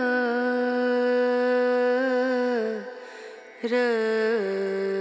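Background music: a single voice holding long hummed or sung notes with small ornaments. It breaks off about three seconds in, then comes back on a new note that slides down and holds lower.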